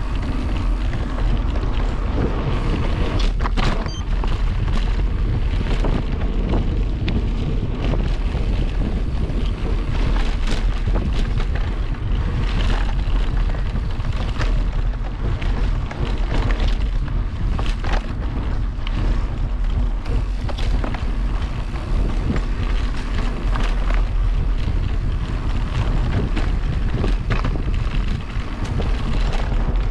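Wind buffeting the microphone of a camera riding along on a mountain bike, a steady loud rumble, with frequent short knocks and rattles from the bike over rough trail.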